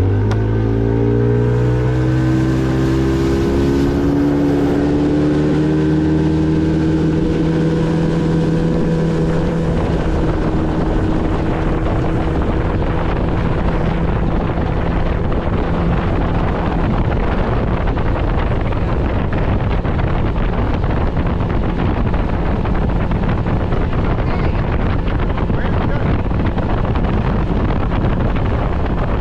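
A small aluminum fishing boat's motor opening up to full throttle, its pitch climbing over the first few seconds and levelling off as the boat comes up on plane. It then runs at speed, mostly buried under wind buffeting the microphone.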